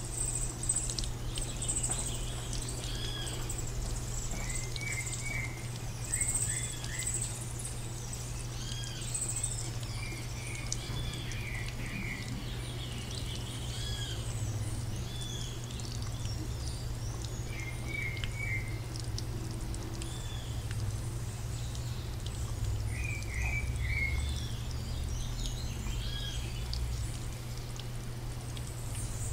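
Small birds chirping in short, quick calls over a steady low hum.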